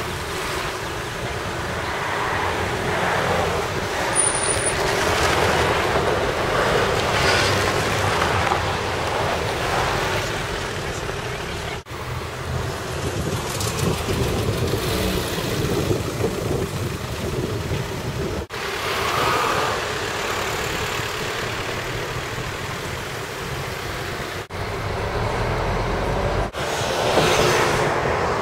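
Road traffic: a steady stream of cars driving past on a two-lane road, the sound swelling and fading as each one goes by, broken by a few abrupt cuts.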